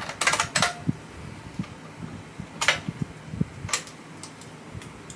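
Keystrokes on an IBM Model M buckling-spring keyboard: a quick run of several clicky keys near the start, then single keystrokes about a second apart.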